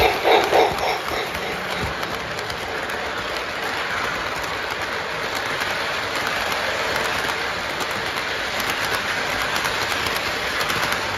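Lionel O-gauge model train rolling past close by on three-rail tinplate track: a steady metallic rolling sound of wheels and motor with fine clicking at the rail joints. A brief louder pitched sound stands out in the first second.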